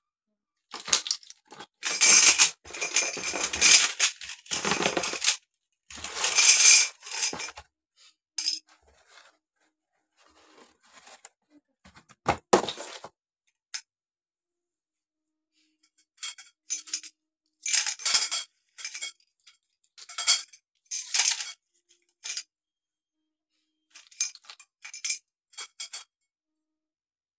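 Thin metal shoe-rack tubes clinking and rattling against one another as they are handled and sorted, with the rack's plastic brackets knocking. A long run of clatter in the first several seconds, then after a lull a series of short clusters of clinks.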